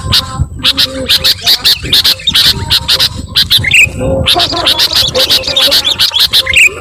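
Sooty-headed bulbuls (kutilang) chattering noisily, a dense run of rapid, sharp calls with a few short rising whistles mixed in.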